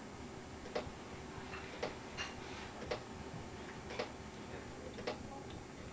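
Faint, regular ticking, about one tick a second, over a quiet room background.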